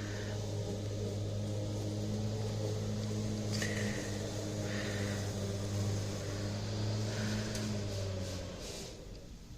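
Lawn mower engine running at a steady pitch, then dying away near the end as it is shut off.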